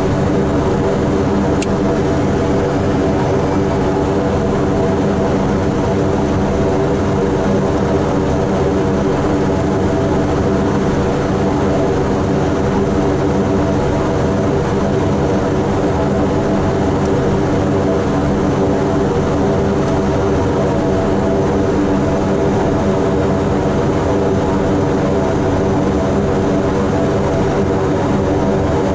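Twin PT6A turboprop engines and propellers of a Beechcraft King Air 90 running steadily at taxi power, heard inside the cockpit as an even, many-toned drone.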